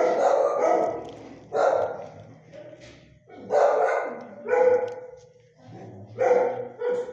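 A dog barking repeatedly, about six loud barks spaced a second or so apart.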